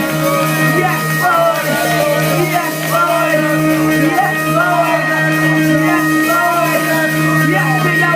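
Church worship music: sustained held chords with voices singing and calling out over them.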